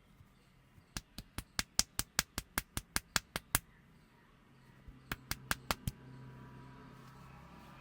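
Rapid rhythmic hand strikes on the head during an Indian barber's head massage: about fourteen sharp slaps at five a second, a short pause, then six more.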